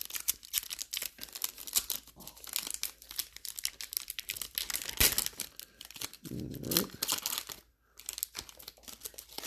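Trading-card packaging and cards being handled at close range: crinkling and rustling with many small clicks, and one sharper click about five seconds in.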